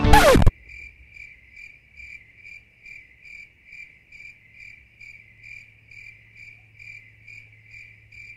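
Music cuts off abruptly with a short falling sweep. Then a cricket-chirping sound effect takes over: faint, evenly spaced chirps, about two or three a second, over a low steady hum. This is the comic "crickets" cue for dead silence and boredom.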